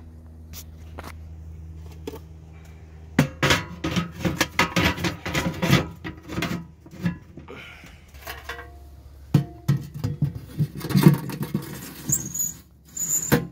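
Steel smoker box loaded with mesquite and hickory wood chunks being handled: rapid clatters and metal knocks as the lid goes on and the box is set down into the smoker, with a short high metal scrape near the end.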